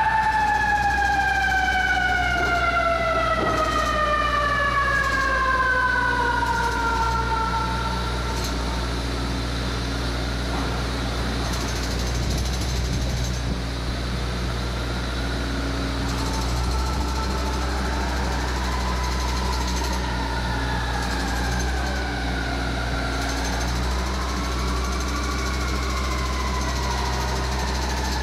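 Fire engine's mechanical siren, just wound up, coasting down in one long falling tone over about eight seconds. From about halfway through it winds up and down again several times, fainter, as the rig pulls away. A steady low engine rumble runs underneath.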